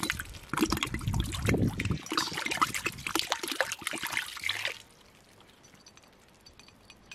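Water pouring and splashing into a pot of powdered oak galls, about two cups, to steep for oak gall ink. The pouring stops about five seconds in.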